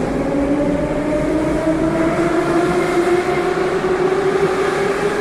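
Moscow Metro train pulling out of the station: its traction motors whine in a slowly rising pitch as it accelerates, over a steady rolling noise of the wheels.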